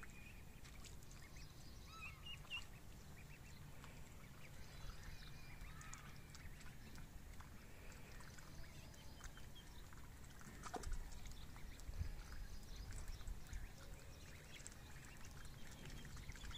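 Ducklings peeping faintly now and then, in short high chirps, with a few light splashes about two-thirds of the way through as they dabble in shallow muddy water.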